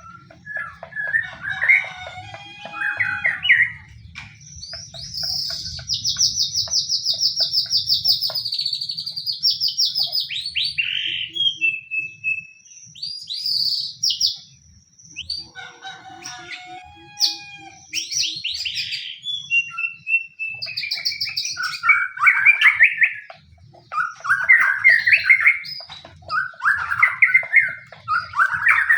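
White-rumped shama singing a varied, aggressive fighting-style song: warbled whistles, a long fast trill in the first half, then short whistles and dense chattering phrases. This is the kind of song used as a lure to provoke other shamas into singing.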